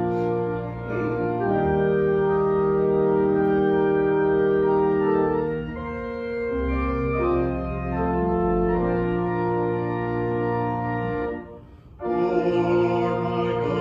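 Organ playing slow, held chords that change every second or two. It breaks off briefly near the end and then starts again with a fuller sound.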